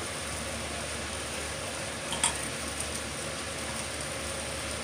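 Hot cooking oil sizzling steadily and faintly, with one light click about two seconds in.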